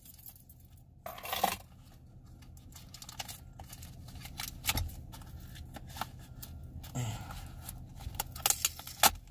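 A tightly sealed cardboard box being pried open by hand: scraping and tapping of cardboard with many small clicks and light metallic clinks, a louder scraping pull about a second in and a quick run of clicks near the end.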